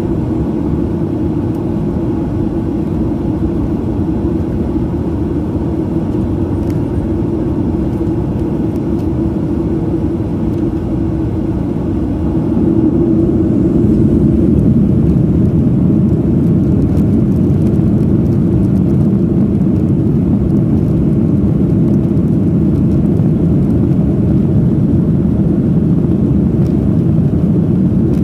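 Jet airliner cabin noise while the plane moves along the ground: a steady low rumble of engines and rolling wheels, heard from inside the cabin, growing louder about twelve seconds in.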